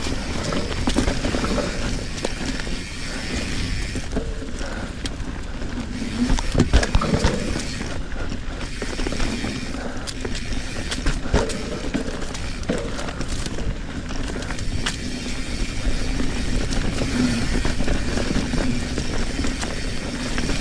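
Trek Fuel EX 7 full-suspension mountain bike ridden down a dirt singletrack: a steady rolling noise from the tyres on the trail, with frequent knocks and rattles from the chain and frame over bumps.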